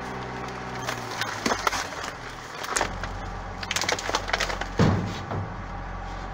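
Plastic trash bags and packaging crinkling and crunching as someone steps and rummages through a dumpster's rubbish, in irregular crackles with a heavier thump about five seconds in. A steady low hum runs underneath.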